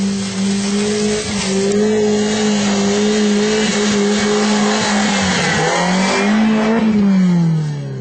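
Off-road 4x4 vehicle's engine held at high, steady revs under load, then the revs drop about seven seconds in.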